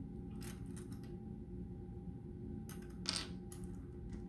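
LEGO plastic pieces being handled and fitted: a few faint clicks and rattles, the clearest about three seconds in, over a steady low hum.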